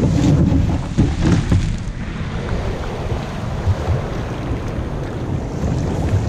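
Wind buffeting the microphone over water rushing and splashing along a kayak hull as it rides up and over a swell. The splashing is loudest at first and eases after about two seconds, leaving a steady rumble of wind.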